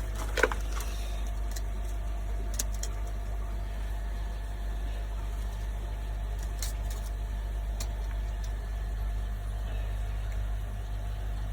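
A motor running with a steady low hum, with a faint click or tap about half a second in and a few more light ticks later.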